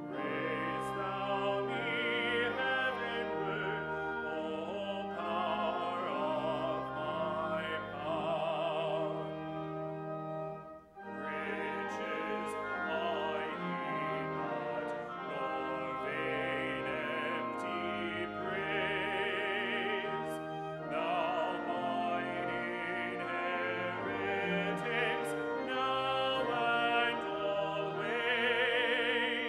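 Solo male voice singing with a wide operatic vibrato, accompanied by flute and cello. The music breaks off briefly about eleven seconds in, then carries on.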